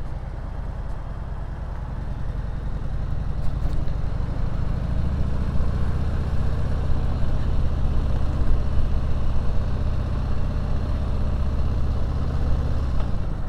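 Harley-Davidson Sport Glide's V-twin engine running through a Screamin' Eagle exhaust with the dB killer removed, heard from the saddle. The note builds over the first few seconds, holds steady, then eases off near the end.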